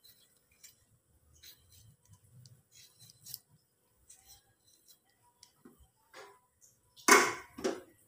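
Knife slicing a hand-held tomato over a wok: soft cutting clicks and ticks as pieces drop in. Two louder, short noisy sounds come near the end.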